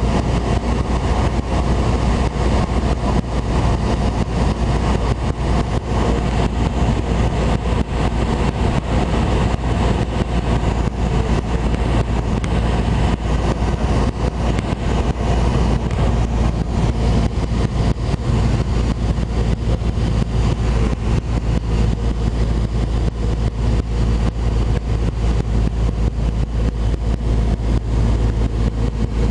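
Cessna 172 Skyhawk's piston engine and propeller running steadily in flight, heard from inside the cabin as a constant drone.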